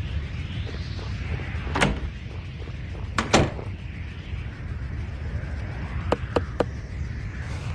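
Cartoon sound effects: a steady low rumble with a slow swishing hiss, broken by a sharp knock a little under two seconds in, a louder double knock about a second later, and three quick clicks near the end.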